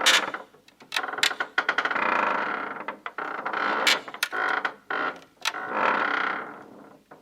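Creaking wood: a series of slow, drawn-out creaks, some about a second long, broken by short clusters of cracking ticks.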